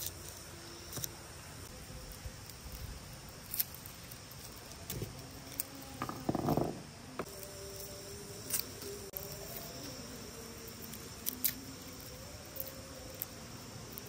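Steady chorus of insects, crickets by their sound, with scattered sharp clicks and knocks, and one louder short noise about six seconds in.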